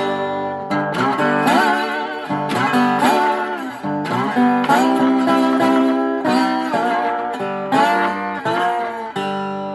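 1934 Regal Dobro resonator guitar played with a slide: chords struck about once a second, many of them slid upward into pitch, in a blues-like run on the freshly repaired instrument.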